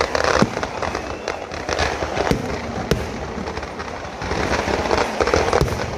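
Kerala temple-festival fireworks (vedikkettu): a dense, continuous crackle of firecrackers and bursting aerial shells, with a few sharper single bangs standing out. The crackle swells louder again about four seconds in.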